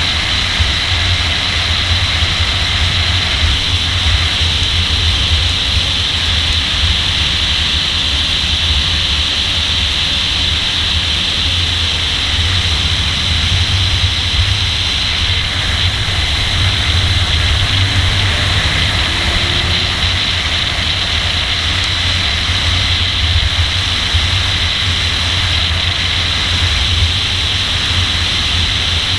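Nissan Z driven at speed on a race track: a steady, muffled rumble of engine, wind and tyre noise with no clear revving.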